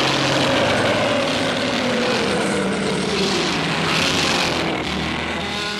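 Godzilla's roar from Toho's sound archive: one long, screeching roar whose pitch falls slowly, tailing off near the end.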